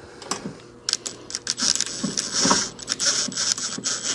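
Makita 18V cordless screw gun driving a screw into a steel door hinge, in short irregular bursts of rapid mechanical clicking and rattling with a faint motor whine, starting about a second in.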